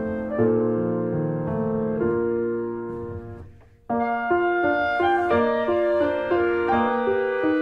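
Background piano music. It fades almost to silence about three and a half seconds in, then a new passage of repeated piano notes starts just after.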